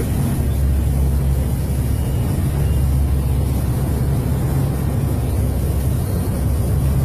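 Steady low drone of the aircraft's engines and rushing air, heard inside the cockpit in flight.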